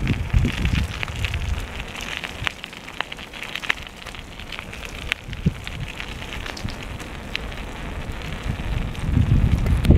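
Wind buffeting the microphone in gusts, with irregular crackling clicks throughout.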